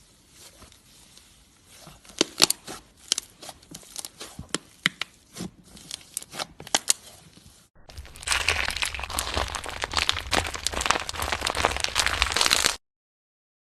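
Slime being worked by hand: scattered sticky clicks and pops, then, about eight seconds in, a denser and louder crackling for about five seconds that stops abruptly.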